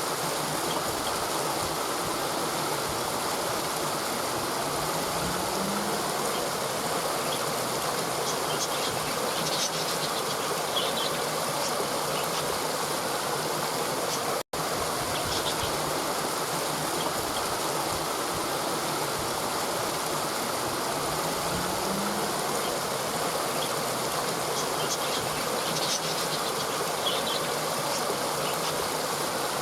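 Steady rushing of a stream flowing over rocks, with a few faint high bird chirps and a brief low buzz. It cuts out for an instant about halfway, where the recording loops.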